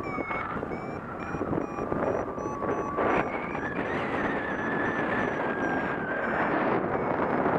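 Wind rushing over the camera's microphone in paraglider flight. Through it a flight variometer beeps steadily, about two to three short high beeps a second, its climb signal in rising air, over a thin steady tone that steps up in pitch about four seconds in.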